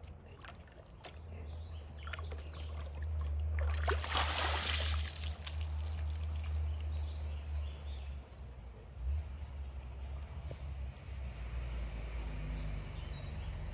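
Water sloshing and splashing in a puppy's bathtub, with one louder splashing hiss about four seconds in, over a low steady rumble.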